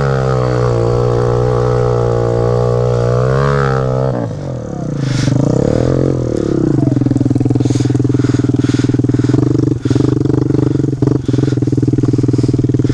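Small dirt bike engine labouring up a steep hill, its revs wavering under load; about four seconds in it drops off, then settles into steady, lower running at the top, with a few sharp clicks.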